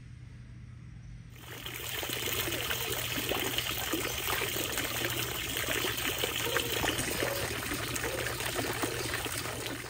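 Fountain water showering down and splashing steadily into a shallow pool. It starts suddenly about a second and a half in and cuts off just before the end.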